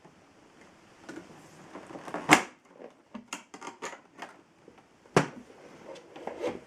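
Handling noise: a string of irregular knocks and clicks of hard objects being moved, with two louder knocks about two seconds in and just after five seconds, and no motor running.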